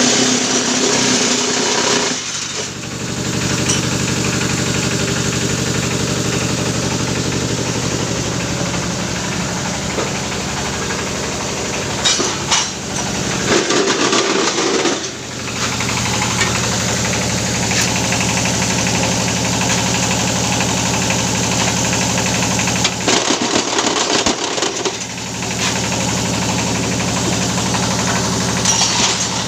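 Engine-driven brick-making machine running with a steady mechanical hum and vibration. The sound changes briefly three times, a couple of seconds in, about halfway through and about three-quarters of the way in.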